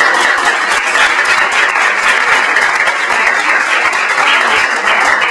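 Audience applauding, a loud, steady clapping.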